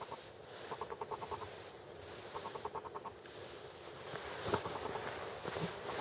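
Footsteps crunching through deep snow, growing stronger from about four seconds in. Earlier there are three short bursts of a fast, even rattling, each under a second long.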